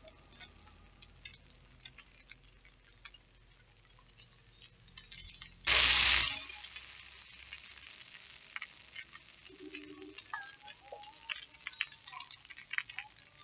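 A metal spatula scrapes and clinks against an iron wok while vegetables and egg are stir-fried in hot oil, with a sizzle under the strokes. About six seconds in there is a sudden, loud half-second rush of noise, after which the sizzle is a little louder.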